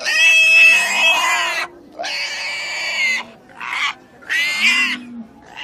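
A pig screaming in four high-pitched squeals. The first is long, the second shorter, the third very brief, and the last short.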